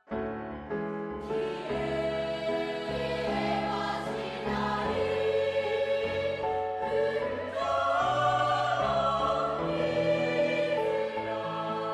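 Background music: a choir singing slow, sustained chords, starting suddenly at the outset.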